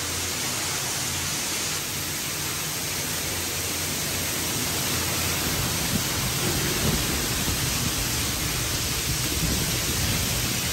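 Rainwater cascading down a steel stairway on a container ship in heavy rain: a steady rushing and splashing, deeper and fuller from about halfway through.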